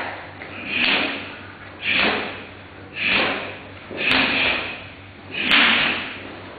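A karateka performing kata Sochin: five sharp, noisy swishes, about one a second, one with each technique as the gi and body move, each fading quickly.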